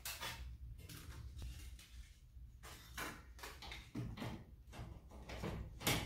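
Garage door torsion hardware being handled: scattered knocks and rattles of the metal torsion tube and end bearing bracket, with the loudest clunk near the end.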